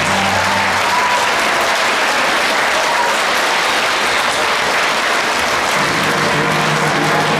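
Theatre audience applauding steadily at a curtain call. Music under the applause drops away just after the start and comes back in about six seconds in.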